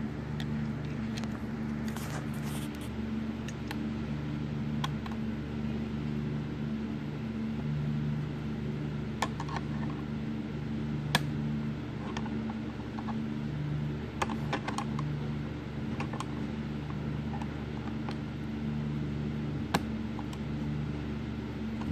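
Scattered light metallic clicks and taps as a small keeper clip is worked onto the throttle linkage of a Ford two-barrel carburetor, over a steady low background hum.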